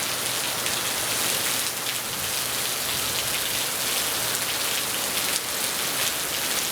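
Heavy rain falling steadily, a dense even hiss of drops on surfaces, whipped by gusting wind.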